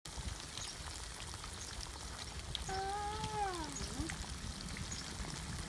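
Flour-battered banana pieces deep-frying in a wok of hot oil: a steady sizzle with scattered small pops. About halfway through, an animal gives one call of about a second that drops in pitch at the end.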